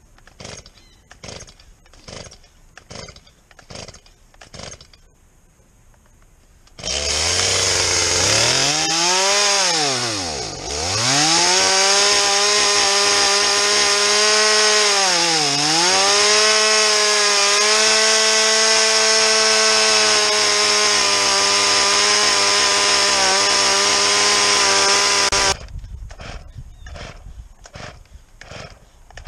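Stihl MS170 two-stroke chainsaw, a healthy saw that was never submerged, catching about seven seconds in after some faint clicking and starting easily. It runs at high revs, its pitch dipping twice as the throttle drops and comes back. The engine sound cuts off suddenly near the end.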